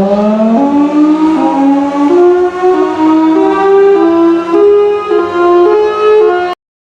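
A warning siren winding up from a low pitch and then climbing in uneven steps, almost like a melody, over a steady low hum; it cuts off suddenly near the end.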